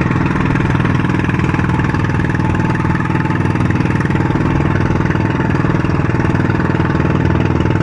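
Engine of a motorized outrigger boat (bangka) running steadily under way, a fast, even firing beat with no change in speed.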